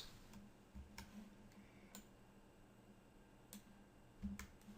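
A few faint computer mouse clicks, spaced irregularly, against near silence.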